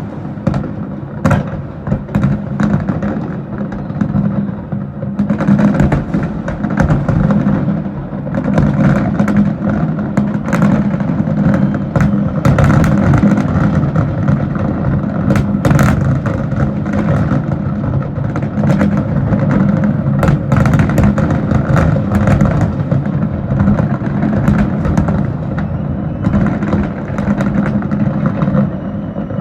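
Dense fireworks barrage, with many overlapping booms and crackles merging into a continuous rumble. It thins a little about the first five seconds in, then stays heavy.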